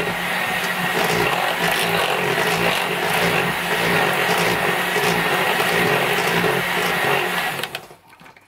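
Bosch electric hand mixer running steadily with a constant high whine, its beaters whipping thick wet-meringue cream in a metal saucepan; it is switched off near the end.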